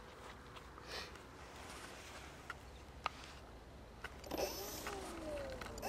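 Quiet outdoor background with a few faint clicks, then, a little past four seconds in, an electric RC model airplane's motor whines up and falls away in pitch, repeating.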